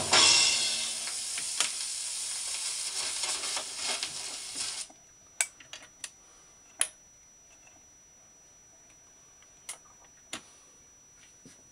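Philips record player reaching the end of a record: the stylus hisses and ticks in the run-out groove, then the sound cuts off suddenly as the automatic return lifts the tonearm. Next come a few sharp mechanical clicks, three in quick succession and then two more a few seconds later, as the arm swings back to its rest.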